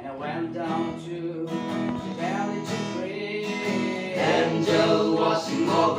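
Strummed acoustic guitar accompanying a group of male voices singing a slow gospel song; the voices come in louder about four seconds in.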